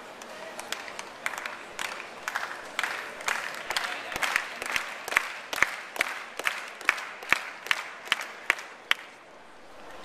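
Tennis crowd applauding between points: a spread of hand claps, with a few loud claps close by standing out. The clapping thins to a few regular claps and stops about a second before the end.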